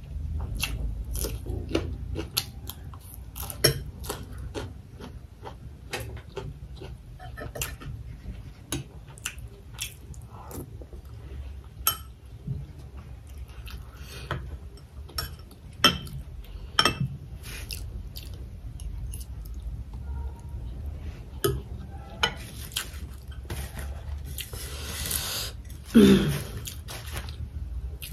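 Close-miked chewing and wet mouth clicks of someone eating rice with a raw red chili, with a metal spoon now and then clinking and scraping in a ceramic bowl, over a low steady hum.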